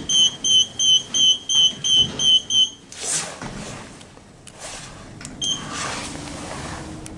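Passenger lift beeping rapidly, about three high beeps a second, stopping about three seconds in, followed by a short sliding swish, one more beep, and a faint low steady hum as the car starts to move.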